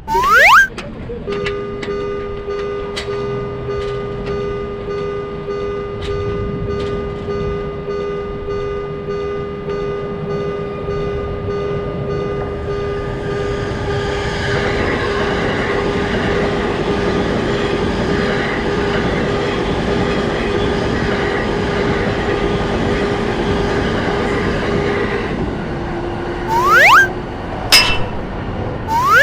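A Japanese level-crossing warning bell rings with a steady, repeating ding. About halfway through, a passing train's rushing rumble joins it, and both stop a few seconds before the end. Short rising cartoon whistle effects come at the start and again near the end.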